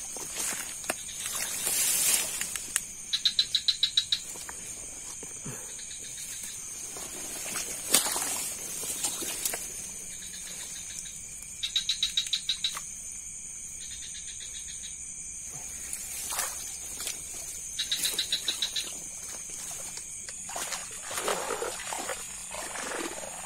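Night insect chorus: a steady high buzzing drone, with a rapid pulsing chirp rising over it three times for about a second each, and a few scattered rustles and knocks.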